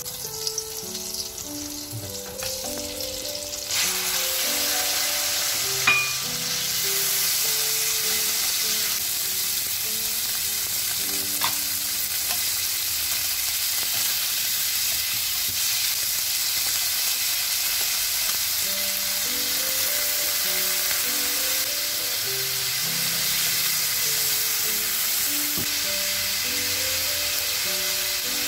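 Sliced pork goes into hot oil in a nonstick frying pan about four seconds in, and the sizzle jumps suddenly. It then sizzles steadily as it is stir-fried with chopsticks, with a couple of brief knocks against the pan. Background music plays underneath.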